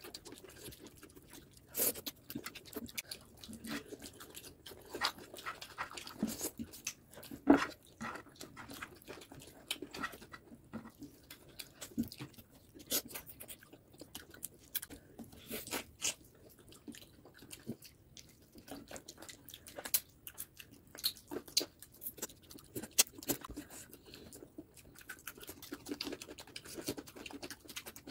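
A person eating close to the microphone: irregular wet chewing and mouth clicks, with occasional sharper crunches.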